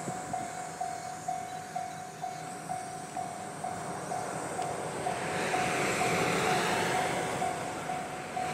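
Railway level-crossing warning bell ringing steadily, a little over two dings a second. A broad rumble swells from about halfway through.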